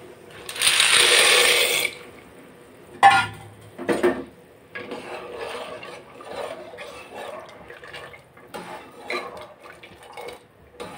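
Dry macaroni poured from a steel bowl into boiling water in a pressure cooker, a loud rush lasting about a second and a half. Then two sharp metal knocks, and the water bubbling as the pasta is stirred with a ladle.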